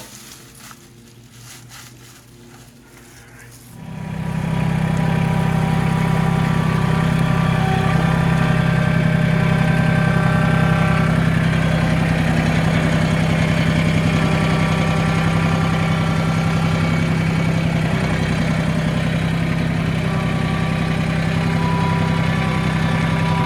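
Mahindra 1626 tractor's three-cylinder diesel engine comes up to speed about four seconds in, then runs steadily at a low idle. It stops abruptly at the very end.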